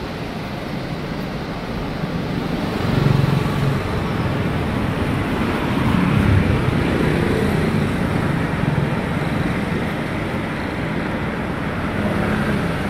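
Steady rumble of passing road traffic, swelling briefly about three seconds in and again about six seconds in.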